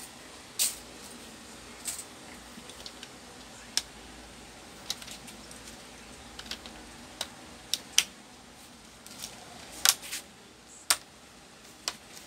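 The plastic screen bezel of an Acer Nitro 5 laptop being pressed onto the display lid, its clips snapping into place with a series of sharp, irregularly spaced clicks that grow louder toward the end.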